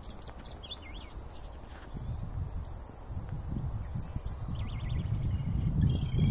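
European robins calling in short, high, varied twittering phrases during a territorial dispute. A low rumble underneath grows louder toward the end.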